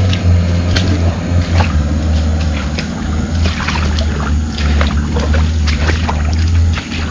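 A loaded car's engine running steadily as it drives over a rough, bad dirt track, with frequent knocks and rattles from the body and load jolting.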